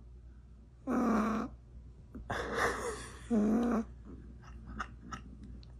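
A pet making three drawn-out calls: one about a second in, a longer, rougher one in the middle, and a shorter one around three and a half seconds in. Faint clicks come near the end.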